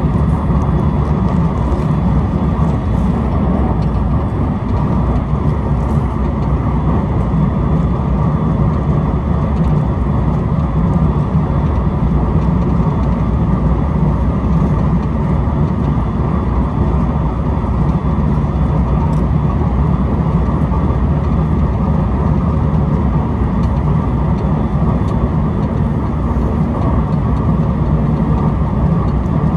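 Steady running noise of an electric train heard from inside the passenger car: wheels rolling on the rails under a low, even rumble, with a faint steady whine.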